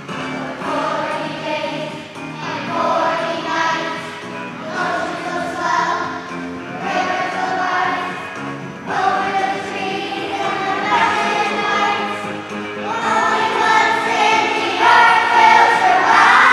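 Children's choir singing together in phrases of a few seconds each, over an instrumental accompaniment.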